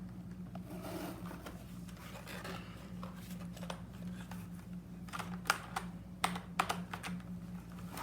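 Mechanical keyboard keys clicking in irregular short strokes, with a few sharper clacks about two thirds of the way in.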